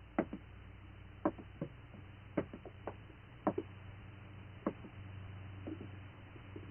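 A slow, even series of soft knocks, about one a second, each followed by a lighter one, over a faint steady hum.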